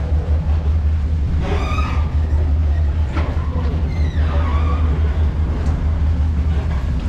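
Steady low hum of a passenger ferry's diesel engines running at idle, with faint voices in the background.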